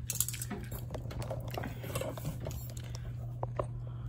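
Faint scattered clicks and light rustling from objects being handled, over a steady low hum.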